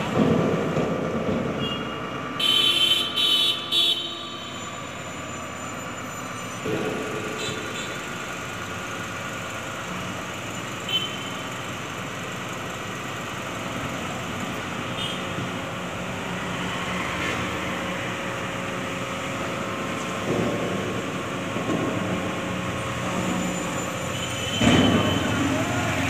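Diesel dump truck engine running steadily while its hydraulic hoist raises the loaded tipper body and the soil slides out. Three short high-pitched beeps come about three seconds in, and the sound swells louder near the end.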